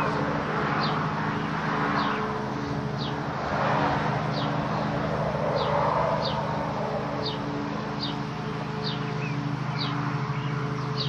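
A bird repeats a short, high, falling chirp about once a second over a steady low hum. Soft rustling of fabric swells and fades as a beekeeper's veil and suit are pulled on and zipped.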